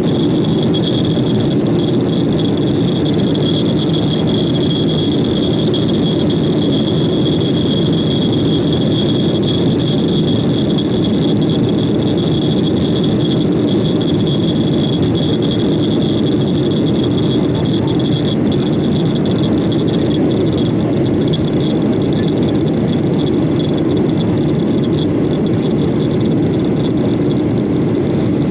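Steady cabin noise of a Boeing 737-800 climbing after takeoff: the low rush of air and CFM56 jet engines heard inside the cabin at a window seat, with a thin high whine over it that weakens partway through.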